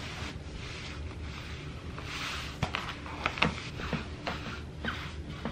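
Bare feet moving and shuffling on a wooden floor: soft rustles at first, then a string of light taps and clicks from about halfway through.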